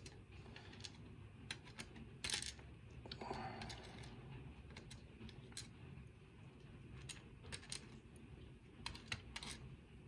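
Faint, scattered clicks and light taps of steel tweezers handling small brass lock pins and springs, setting them down in a plastic pin tray while a lock cylinder is emptied. The clicks come singly and a second or so apart, bunching up more in the last few seconds.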